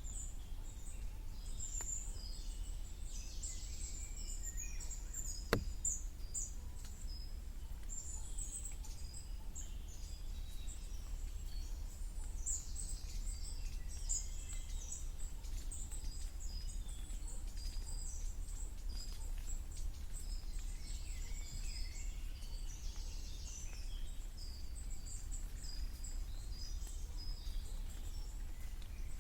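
Woodland birds singing in a spring chorus: many short high chirps and trills from several birds, over a steady low rumble. One sharp tap about five and a half seconds in.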